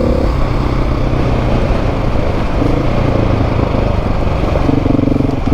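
Dirt-bike engine running close by, steady with a rumbling hum, its pitch lifting briefly twice as the throttle is opened a little: the bike is ready for another climb up a steep hill.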